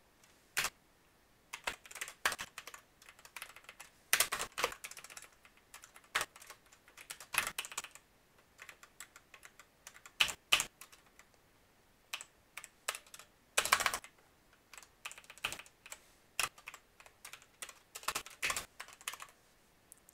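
Computer keyboard keys being typed in irregular bursts of clicks with short pauses between them, with dense runs of quick keystrokes about four seconds in and again just before fourteen seconds.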